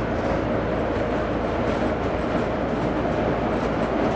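Volvo B9TL double-decker bus's six-cylinder diesel engine running at steady cruising speed, heard inside the passenger cabin mixed with road and tyre noise as a steady low rumble and drone.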